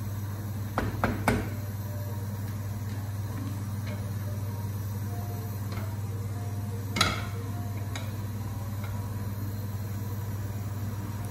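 Wooden spoon and spatula knocking against a steel pot and a frying pan while stirring: a few quick knocks about a second in and one louder knock about seven seconds in, over a steady low hum.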